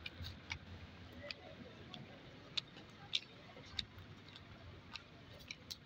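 Faint footsteps on a paved path strewn with dry leaves: a few sharp, irregular ticks over a low, steady background rumble.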